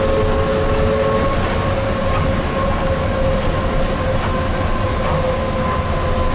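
Tateyama Tunnel Trolleybus running steadily in its tunnel: a continuous low rumble of tyres and drive, with a held whine from its VVVF inverter-driven AC traction motor that drifts slightly lower.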